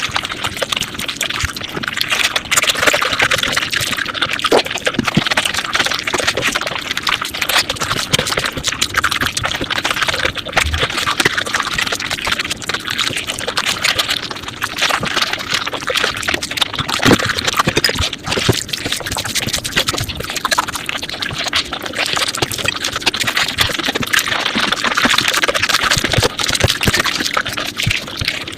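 Close-miked mukbang eating sounds sped up five times: a dense, rapid stream of chewing and mouth clicks.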